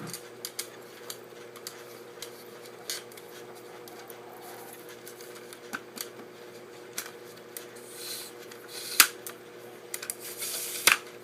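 Scattered clicks and knocks from a Targus camera tripod being handled as its quick-release leg locks are flicked and the legs pulled out, with one sharp snap about nine seconds in. A faint steady hum runs underneath.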